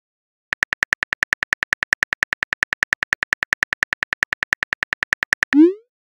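Keyboard typing sound effect from a texting app: quick, even clicks, about nine a second, starting about half a second in. Near the end, a short rising swoosh.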